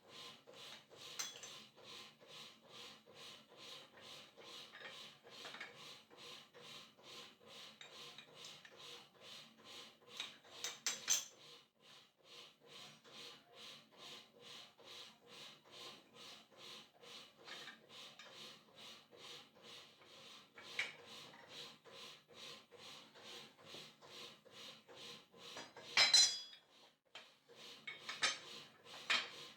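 Metal parts and tools clinking as they are handled, a few louder clanks standing out, over a steady ticking of about two or three clicks a second.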